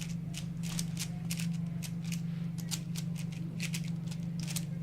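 Rubik's Cubes being turned fast by two solvers racing, the plastic layers snapping round in quick irregular clicks, several a second. A steady low hum runs underneath.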